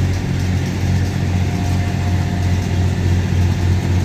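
Small diesel engine of compact construction machinery (mini excavator and skid-steer loader) running at a steady idle, a constant low hum with no revving.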